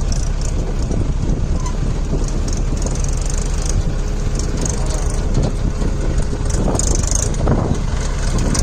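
Mahindra 575 DI tractor's four-cylinder diesel engine running steadily under load while pulling a loaded trolley.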